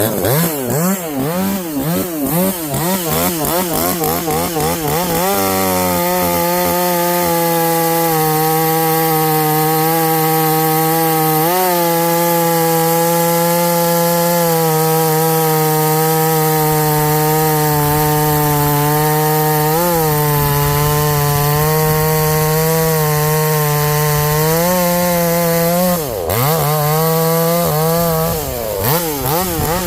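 Muffler-modded Harbor Freight Portland gas chainsaw revved in quick blips, then held at steady full throttle from about five seconds in, cutting through a white oak log with a dull stock chain. About 26 seconds in the revs dip briefly, then it revs freely again near the end.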